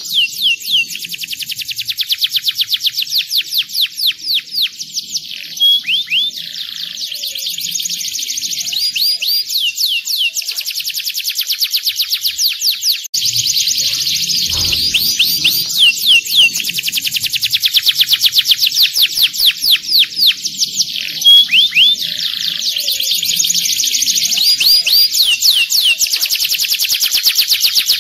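Domestic canary singing a long, high-pitched song of fast repeated notes and rolling trills, the notes sweeping quickly in pitch; the song breaks off for a moment about halfway through and resumes.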